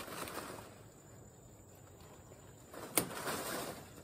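Leaves and branches of a cacao tree rustling as a branch is handled, then a single sharp click about three seconds in with more rustling after it: a branch being cut off in pruning.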